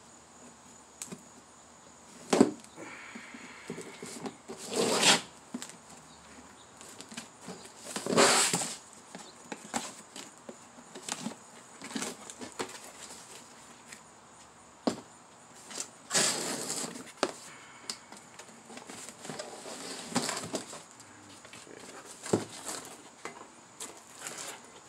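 Cardboard box being opened and handled: a string of separate scrapes, rustles and knocks from the cardboard flaps and inner box sliding out, a few seconds apart, with small clicks in between.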